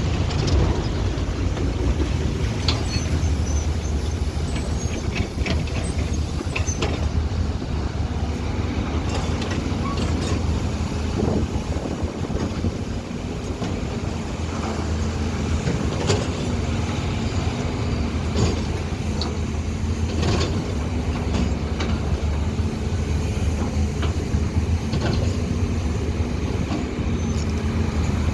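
Hydraulic excavator's diesel engine running steadily under working load, with scattered metallic clanks and knocks from the bucket and machine as it digs.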